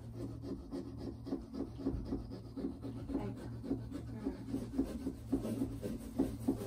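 Small serrated pumpkin-carving saws sawing back and forth through pumpkin rind and flesh, a rapid run of short rasping strokes that grows busier in the second half.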